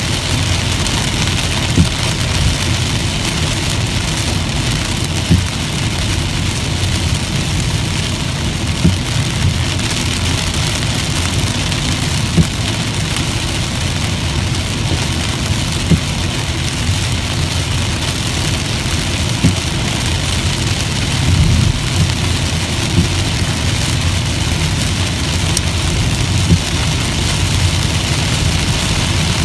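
Inside a car driving on a highway in heavy rain: a steady low road and engine rumble with rain hissing on the windshield and body, and sharp taps every few seconds.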